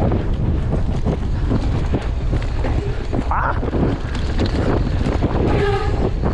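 Heavy wind buffeting the microphone of a mountain bike camera on a fast downhill run over a dry dirt trail, with steady rattling and knocking from the bike over rough ground. A short shout from a voice near the end.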